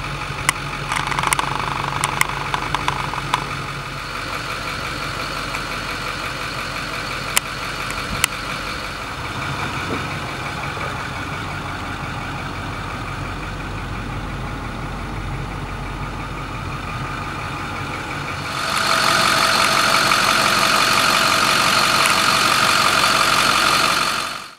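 A 2008 Ford service truck's engine idling steadily, with scattered sharp clicks in the first few seconds. About three quarters of the way through, a louder, hissier running sound takes over, then fades out near the end.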